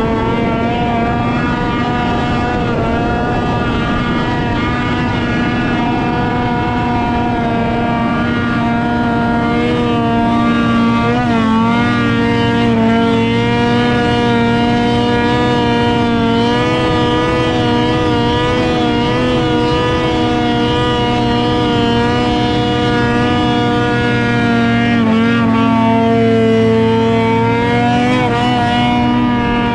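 Ski-Doo MXZ X 850 snowmobile's two-stroke engine running at a steady speed under way, heard from the rider's seat. Its pitch wavers briefly about a third of the way through and shifts up and back near the end.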